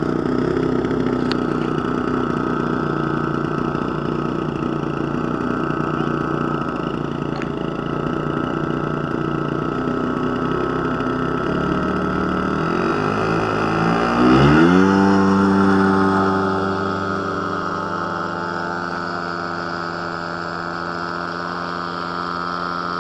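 Single-cylinder two-stroke Desert Aircraft DA-50 gasoline engine on an RC Yak 55M aerobatic plane, running at a steady low throttle. About twelve seconds in it revs up through a rising pitch for the takeoff, peaks in loudness, then holds a steady high pitch, slowly getting quieter as the plane climbs away.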